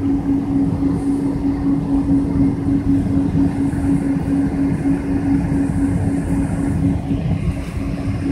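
Cabin noise inside a Boeing 777-200 taxiing after landing: a steady low rumble from the engines and rolling airframe, with a steady hum running through it.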